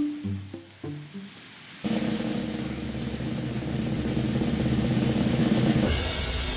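Background music: a few short pitched notes, then from about two seconds in a drum roll that builds in loudness.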